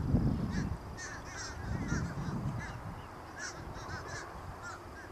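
A flock of birds calling, many short arched calls overlapping and repeating throughout. Low rumbles near the start and again about two seconds in are the loudest part.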